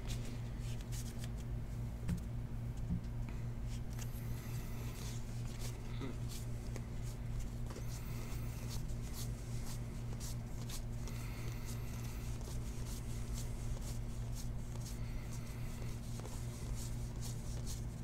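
Baseball trading cards being flipped and slid one behind another in the hands: a run of soft flicks and short papery slides, heard over a steady low hum.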